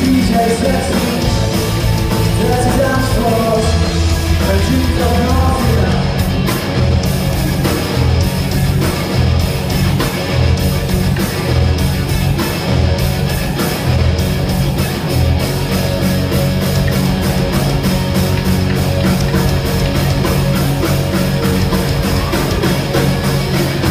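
Live rock band playing loud electric guitars over a drum kit through a concert PA, with a steady beat and moving bass notes.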